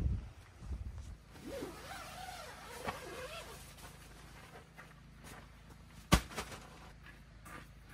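Camping gear being handled in and around a tent: soft knocks, then one sharp knock about six seconds in. A faint wavering animal call is heard about two seconds in.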